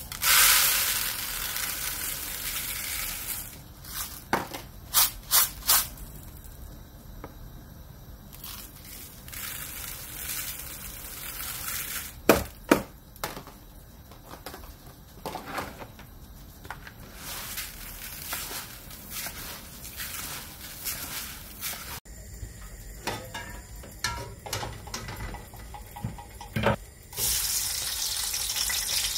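Dry long-grain rice poured into a plastic bowl, a hissing patter of grains lasting about three seconds. A few sharp knocks and clicks follow. Near the end, sliced onions start sizzling in hot oil in a pot, a steady frying hiss that begins suddenly.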